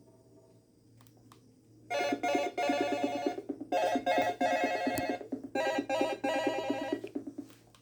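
Electronic alarm ringtone with a bell-like ring: after a short quiet, three bursts of rapid trilling ring, each about a second and a half, with short gaps between them.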